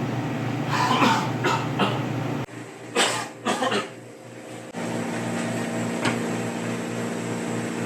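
A person coughing: a run of three or four coughs in the first two seconds, then another short fit of coughs about three seconds in, over a steady low hum.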